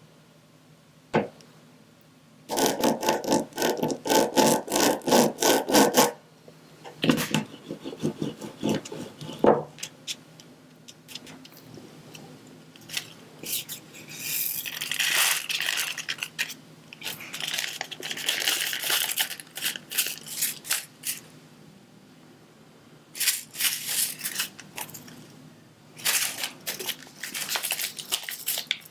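Close-up diamond painting handwork: bursts of rapid small clicks and rattles from the plastic drills and tools, with a stretch of scraping and rustling in the middle.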